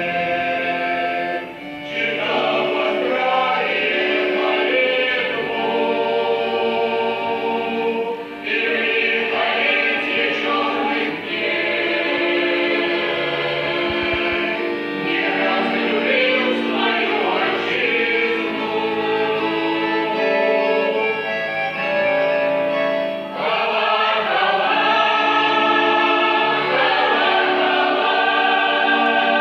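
A choir singing held chords, with short breaks between phrases about one and a half and eight seconds in.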